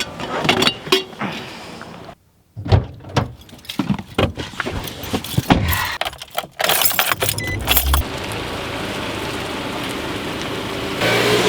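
Keys jangling among irregular clicks and knocks of handling inside a car. From about eight seconds in, the steady running and road noise of the car under way.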